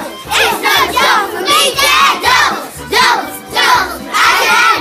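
A group of young children singing and shouting along to recorded music with a steady beat and a bass line, their voices loud and high in short repeated phrases.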